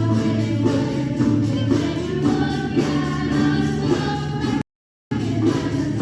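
Music with singing, a choir-like song with a steady beat. It stops dead for about half a second near the end, then carries on.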